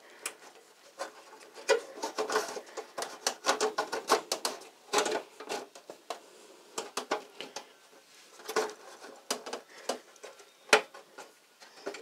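Irregular plastic clicks, light knocks and rustling as a drive's power cable is handled, routed and pushed into place inside a desktop PC case, with one sharper click near the end.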